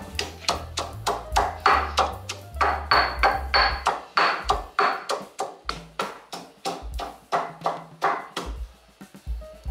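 Kitchen knife chopping on a cutting board in a steady rhythm of about three strokes a second, easing off near the end, over background music.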